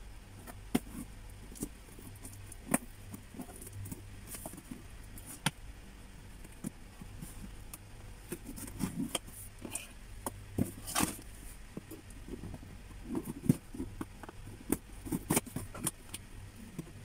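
Fingers picking and scratching at the packing tape on a cardboard shipping box: scattered light clicks, taps and scrapes, over a low steady hum.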